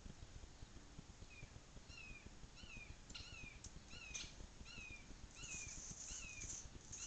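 Faint series of short, falling animal calls, each a quick downward slur, about two a second, with a few sharp clicks mixed in.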